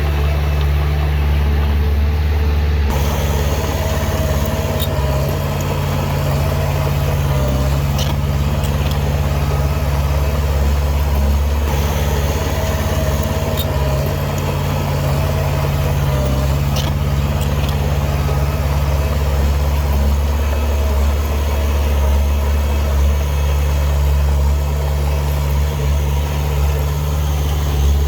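Heavy diesel engine of earthmoving machinery running steadily with a deep drone, a few faint ticks heard over it.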